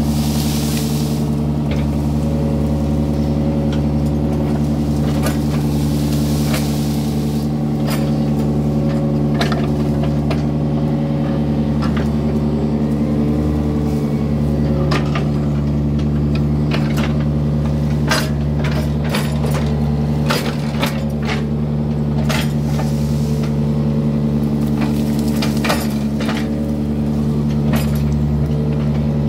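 Yanmar mini excavator's diesel engine running steadily while it digs, with repeated metallic clanks and knocks from the working arm and bucket, more frequent in the second half.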